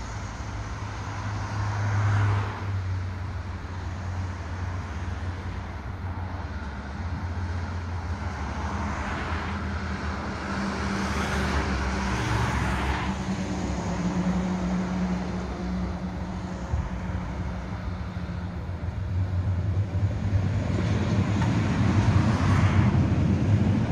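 Road traffic passing on a multi-lane street, with several cars swelling by. A Konstal 805Na two-car tram set rumbles along the rails and gets louder toward the end as it passes close underneath.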